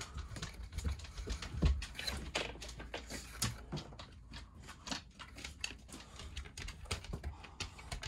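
Irregular light clicks and taps over a low steady hum.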